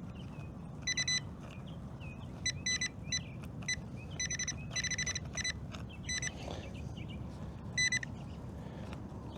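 Metal detector beeping: short, identical high-pitched beeps at irregular intervals over a target in the ground.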